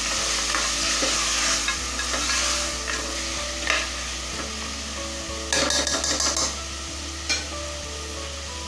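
Mutton, tomato and green chillies sizzling in hot oil in a pressure cooker as they are stirred, with a steady hiss. The spoon scrapes and knocks against the pot, in a cluster of knocks a little past halfway.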